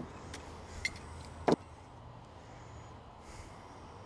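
Small metal carburetor parts and tools being handled on a workbench as a Carter AFB's choke is taken off: a few short sharp clicks and knocks, the loudest about a second and a half in, over a low steady hum.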